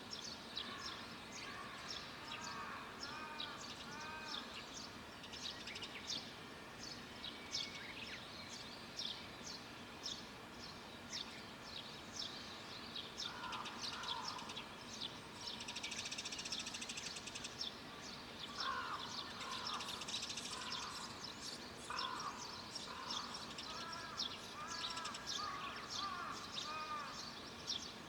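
Wild birds singing outdoors: many small birds give rapid short high chirps all through. Runs of lower, repeated calls come in at times, and a dense trill sounds about halfway through.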